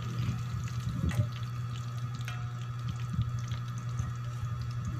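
Pork sizzling in hot oil in a wok, with scattered pops and crackles over a steady low hum. A metal ladle knocks against the wok once, sharply, about a second in.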